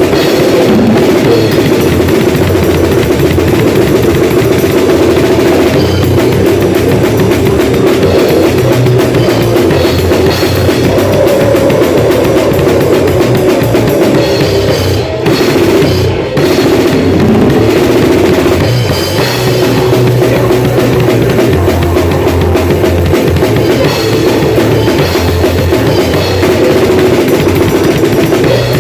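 Drum kit played loudly and without letup, bass drum and snare hitting densely, with two short breaks about fifteen and sixteen seconds in.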